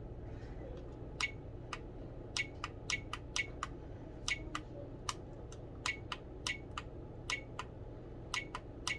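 Camcorder buttons clicking as they are pressed through the menu: about twenty short, sharp clicks at an uneven pace of roughly two a second, starting about a second in, over a steady low hum.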